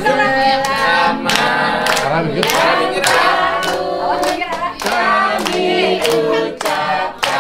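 A group of adults and children singing a birthday song together, clapping along about twice a second.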